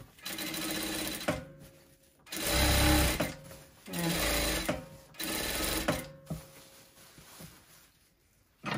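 Tysew industrial lockstitch sewing machine stitching in four short runs of about a second each, starting and stopping with the pedal; the second run is the loudest.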